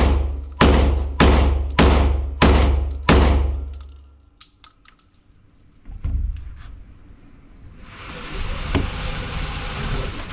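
Beretta 1301 Tactical semi-automatic 12-gauge shotgun fired rapidly, six shots about 0.6 s apart, each ringing off for about half a second. After the string come a few light clicks and a thud, then a steady rushing noise near the end.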